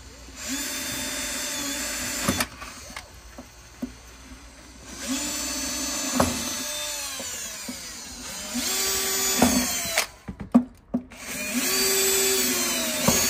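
Cordless drill boring holes through the boat's hull. It runs in four separate bursts of one to three seconds each, with short clicks and knocks between them.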